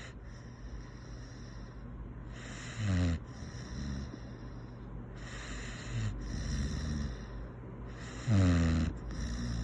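A dog snoring in its sleep, a snore that sounds like a pig: two loud snores, about three seconds in and near the end, with softer snoring breaths between.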